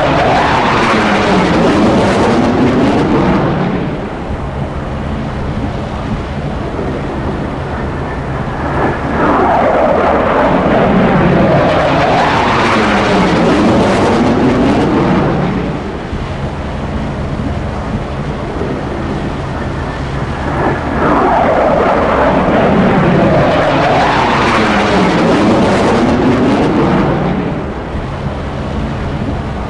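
F-16C fighter jets' engines roaring past, the jet noise swelling and fading three times about twelve seconds apart, each pass with a sweeping, phasing whoosh as the aircraft goes by.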